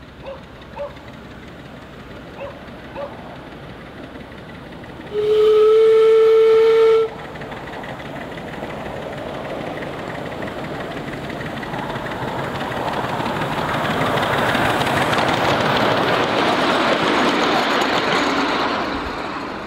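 Miniature steam locomotive's whistle gives one steady blast of about two seconds. Then the passenger train runs on the track, its noise growing louder as it passes close and dropping away near the end.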